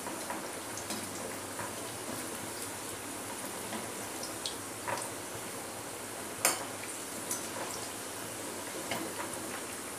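Steamed veg momos frying in hot oil in a wok: a steady sizzle, with a metal spoon clinking against the pan a few times as they are turned, the loudest clink about six and a half seconds in.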